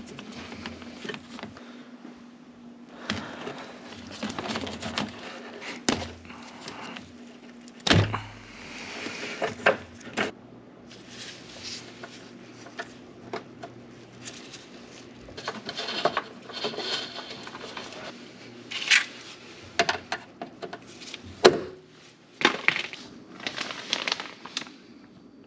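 Irregular metallic clinks, knocks and scrapes of hand tools and brake parts being handled during reassembly, with two louder knocks, one about eight seconds in and one after about twenty seconds.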